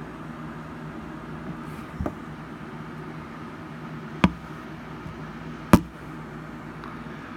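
Steady low mechanical hum, with three sharp knocks; the last is the loudest.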